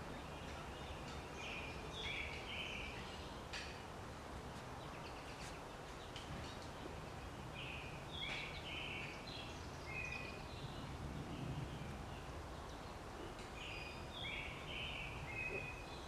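Small songbird chirping in three short bursts of quick, repeated high notes, over a steady low outdoor background noise.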